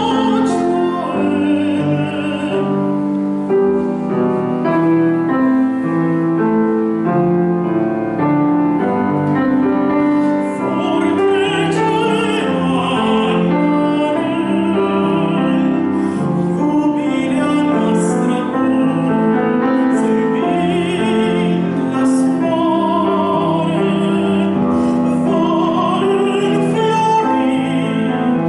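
A countertenor singing an art song in operatic style, the held notes wavering with vibrato, over piano accompaniment.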